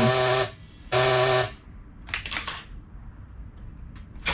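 Two short bursts, about half a second each, of a steady pitched drone as the starter turns over a Crusader 454 marine V8 that won't start. The engine doesn't catch.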